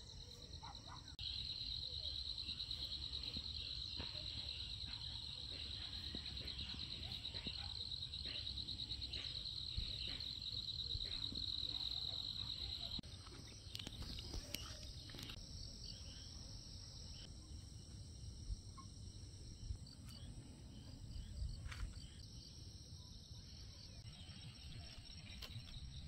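Insects calling: a steady, rapidly pulsing trill starts about a second in and cuts off around halfway through, leaving fainter, higher-pitched insect calls and a few soft clicks.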